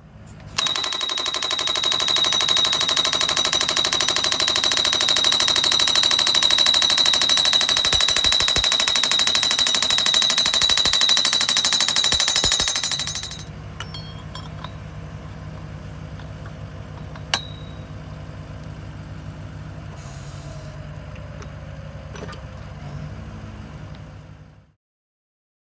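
Geoprobe direct-push drill rig's percussion hammer driving rods into the ground: a loud, rapid, steady hammering with a high ring, stopping about halfway through. The rig's machinery then keeps running with a lower steady hum and a single click.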